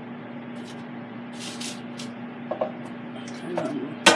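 Power XL air fryer running with a steady low hum, and hot breaded chicken hissing in its pulled-out basket as it is turned with metal tongs. A short burst of hiss comes about one and a half seconds in, and a sharp click of the tongs comes right at the end.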